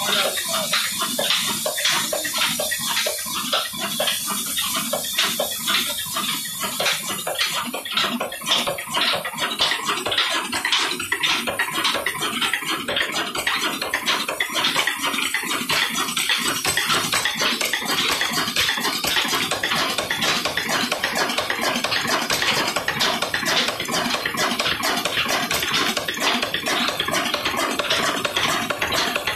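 Pakistani-made Ruston Hornsby-pattern single-cylinder stationary diesel engine with a big flywheel running steadily, a dense fast ticking over a noisy mechanical rush. The sound turns brighter and closer about seven seconds in.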